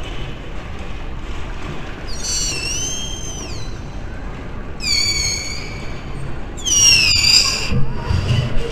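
Three shrill, high-pitched calls from the crowd over a low background murmur. The first rises then falls, the second holds nearly level, and the third, the loudest, slides downward.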